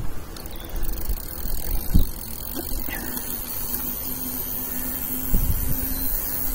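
GT Verb Sport mountain bike rolling on pavement with its freehub ratchet clicking. Wind rumbles on the microphone, and a steady hum comes in about halfway through.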